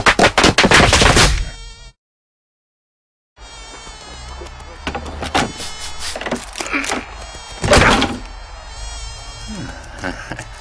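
A fast run of loud hits that cuts off abruptly about two seconds in. After a moment of silence comes a housefly's buzzing, its pitch wavering, with a couple of louder hits along the way.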